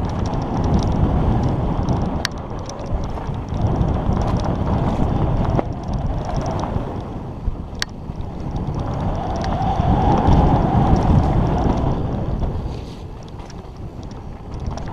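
Wind buffeting the microphone together with the rumble and rattle of a mountain bike rolling fast over a dirt downhill trail, swelling and easing with speed, loudest about two-thirds of the way through. A couple of sharp clicks from the bike cut through.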